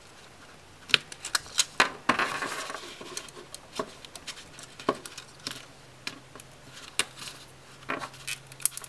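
Stiff plastic packaging clicking and crinkling in irregular snaps and short rustles as a headphone cable is pulled free of a plastic box insert.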